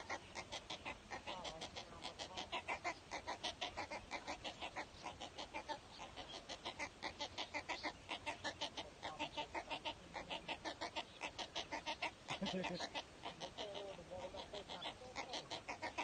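Waterbird nestlings in a stick nest calling without pause: short, rapidly repeated chattering calls at about four to five a second.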